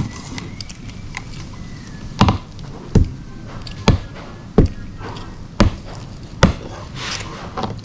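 Six sharp knocks, evenly spaced a little under a second apart, starting about two seconds in.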